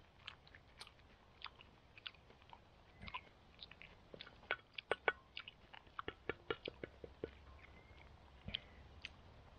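A person chewing a mouthful of wild garlic (ramson) salad: a string of small, crisp clicks and crunches, thickest in the middle stretch.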